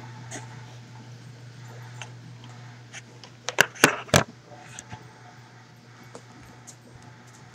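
Four sharp knocks in quick succession about three and a half seconds in, with a few fainter ticks around them, over a steady low hum.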